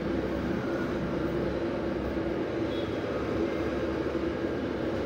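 Steady background hum with a faint constant tone.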